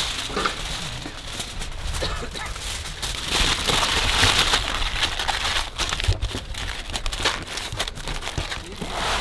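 Aluminium foil crinkling and crackling as it is crumpled and pressed by hand around a large whole fish. The crinkling is loudest a little past the middle.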